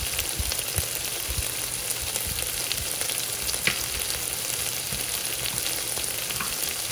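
Onions and baby carrots sautéing in a pot, a steady sizzle with scattered small pops and crackles.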